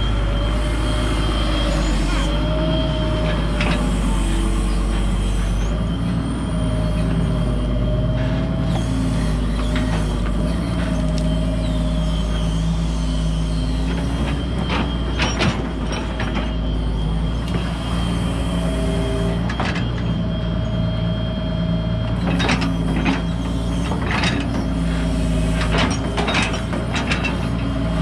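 Hydraulic excavator's diesel engine running steadily under load, with a hydraulic whine that wavers up and down in pitch as the arm works. Sharp knocks and clanks of the bucket against rock and mud come once about halfway through and several times near the end.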